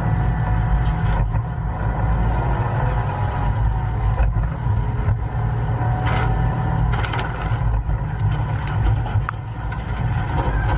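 Heavy truck engine running with a steady low drone, heard from inside the cab, with scattered clattering knocks in the second half.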